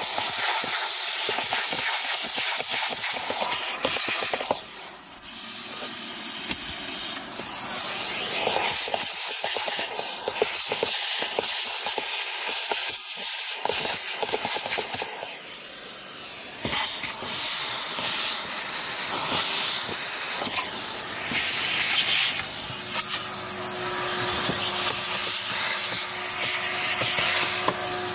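Vacuum cleaner hose nozzle sucking air with a loud, steady hiss as it is worked over a car's cup holders, centre console and dashboard. The hiss swells and dips as the nozzle meets and leaves surfaces, with a brief drop about five seconds in, and a faint steady whistle joins near the end.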